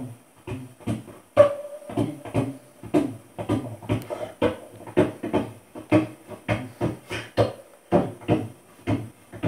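Beatboxing into a handheld microphone: a steady rhythm of kick- and snare-like mouth sounds, about two beats a second.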